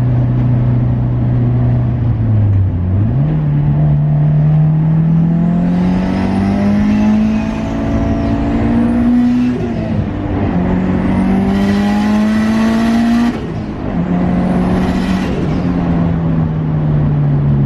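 Straight-piped, big-turbo 2002 Subaru WRX's turbocharged flat-four, heard from inside the stripped cabin, pulling hard through the gears. The engine note climbs steadily, drops at a gear change about ten seconds in and climbs again, then falls away sharply as the throttle is lifted about thirteen seconds in, settling lower toward the end.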